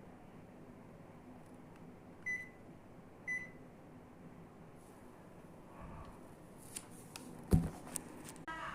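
Panasonic air conditioner giving two short electronic beeps about a second apart, the unit acknowledging remote-control commands, over a low steady hum. Near the end come a few sharp clicks and one loud thump.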